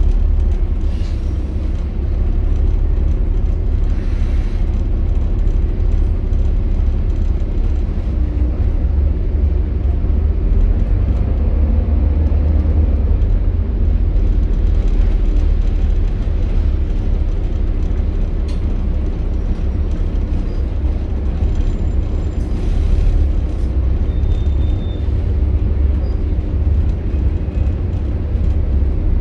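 Volvo B7TL double-decker bus's six-cylinder diesel engine running, heard from inside the passenger saloon as a steady deep rumble. Short hisses of air come a few times: about a second in, around four seconds, and near the 23-second mark.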